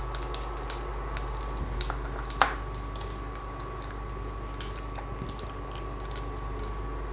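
Cumin seeds frying in hot oil in a steel pressure cooker, giving scattered sharp pops and crackles with one louder pop about two and a half seconds in. Under it runs a steady thin high whine from the induction cooktop.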